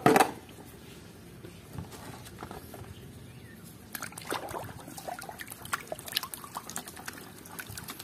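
Hand swishing and splashing in a plastic tub of water, with small splashes and drips. The splashing grows busier about halfway through, and there is a single sharp knock at the very start.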